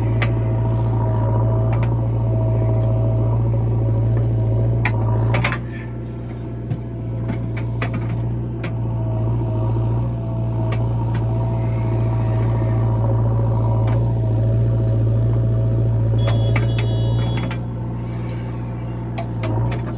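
A JCB's diesel engine running steadily, easing off twice, with scattered metal knocks. A short pulsing high beep sounds near the end.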